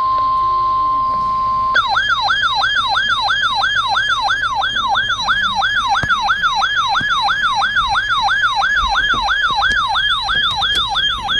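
Electronic emergency alert: a steady alert tone near 1 kHz for about two seconds, then a fast warbling siren sweeping up and down about three times a second, signalling a severe thunderstorm watch.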